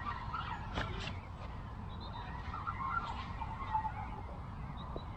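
Waterfowl calling on the lake in short scattered calls, with a few sharp clicks about a second in over a steady low rumble.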